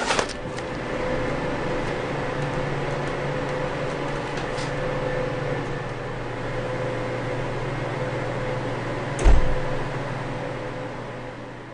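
Steady low mechanical hum, like a morgue's refrigeration or ventilation plant, with a short clatter at the start and a single heavy thump about nine seconds in.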